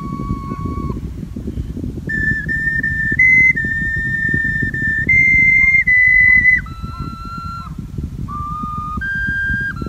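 Soprano ocarina played slowly: a series of single, clear held notes that step up and down, with a short break about a second in. A low rumble runs underneath.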